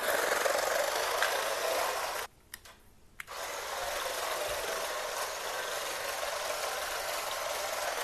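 Toy RC drift car's small electric motor whirring, its tyres sliding on a hardwood floor. It cuts out for about a second a little over two seconds in, then runs again.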